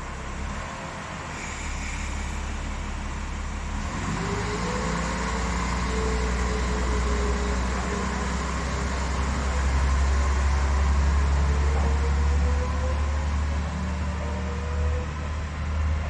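Diesel railcar pulling away from a station platform: a steady low engine rumble, joined from about four seconds in by a whine that rises in pitch as the train gathers speed.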